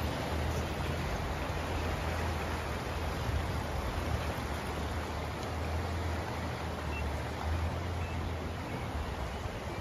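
Steady rushing of the Aare river flowing beneath the bridge, an even hiss with a low steady rumble underneath.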